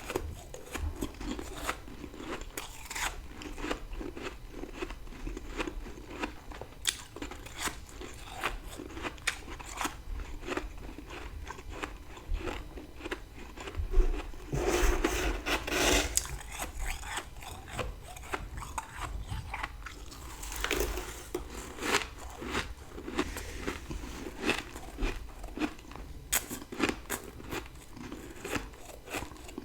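Close-up crunching and chewing of dry freezer frost eaten in big bites, many irregular crisp crackles, with a louder, longer crunch about halfway through.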